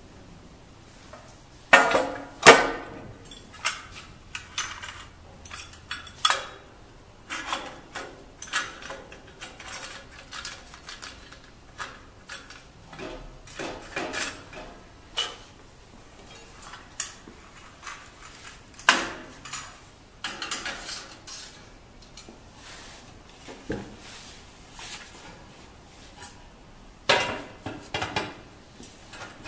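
Irregular metallic clanks, knocks and clicks from metal parts of a manual rotary screen printing press being handled and fitted. The loudest clanks come about two seconds in, near the middle and near the end.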